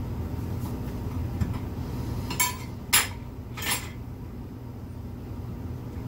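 Steel tire irons clinking three times against a dirt bike's wheel rim, a little over half a second apart, while the rear tire's bead is levered onto the rim, over a steady low hum.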